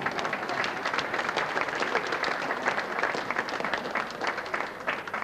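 Audience applauding: many people clapping at once, thinning out near the end.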